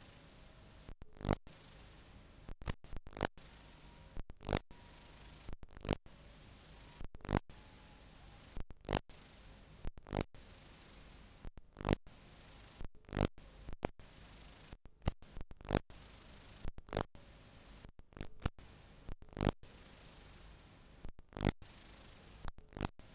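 Blank analogue videotape playing back: a steady hiss broken by irregular loud crackles and brief dropouts, about one a second.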